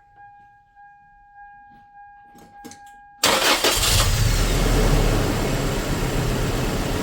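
A faint steady high tone, then about three seconds in the 2004 Toyota Tacoma's four-cylinder engine is cranked and catches, running on with a shake from a dead miss on cylinder 1.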